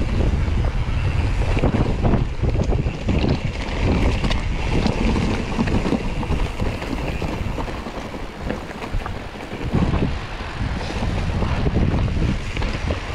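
Gusty wind buffeting the camera microphone as a low rumble, with irregular knocks and rustles over it.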